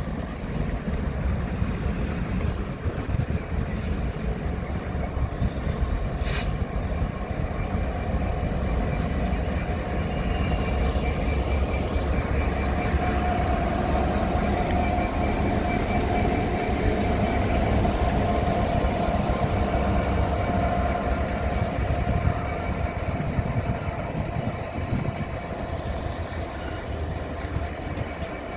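A train running past on the line, a steady heavy rumble of wheels on rail with a sharp click about six seconds in and a steady tone sounding through the middle stretch.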